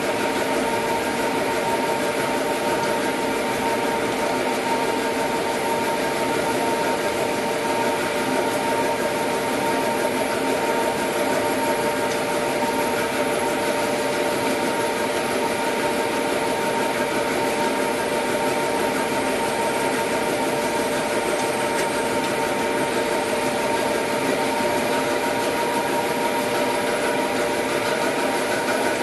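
Dry offset plastic cup printing machine running at production speed. It makes a steady, unbroken mechanical hum with constant whining tones.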